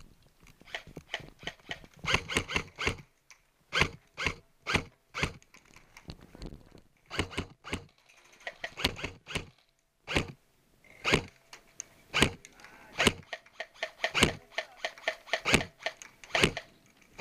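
Airsoft gunfire exchange: irregular bursts and single shots of sharp clicks and snaps, some in quick clusters and some spaced a second or so apart.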